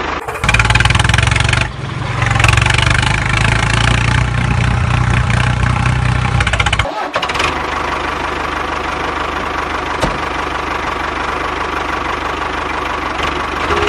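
Tractor engine running steadily with a low throb. It breaks off briefly near two seconds and again about seven seconds in, then carries on with less low end.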